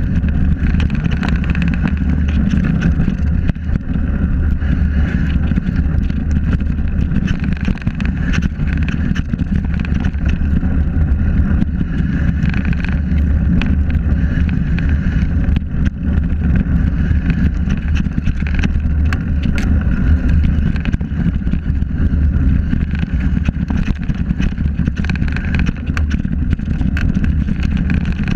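Steady wind rumble on a bike-mounted action camera's microphone as a mountain bike descends fast over a rocky dirt trail. Many small clicks and rattles come from the bike and its knobby tyres jolting over the stones.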